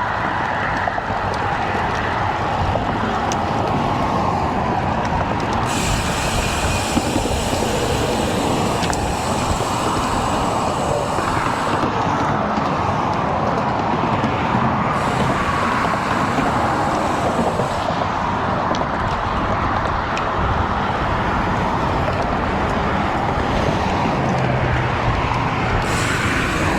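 Road traffic passing on a highway, heard over a steady noisy rush from a moving road bicycle, with surges of hiss as vehicles go by.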